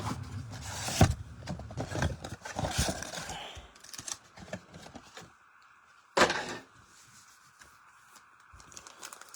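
Trading-card box and foil packs being handled and opened: scattered clicks and rustling for the first few seconds, then a single short sharp sound about six seconds in.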